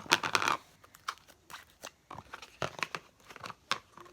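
Fluffy slime being squished and pulled in the hands, giving sticky, crackly clicks and pops: a dense run in the first half second, then scattered clicks.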